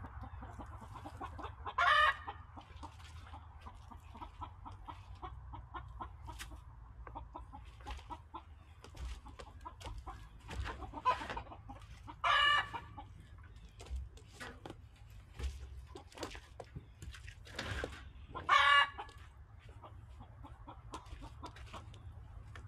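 Silkie chickens clucking, with three louder short calls spread through, over faint rustling and ticking of plastic bird netting being handled.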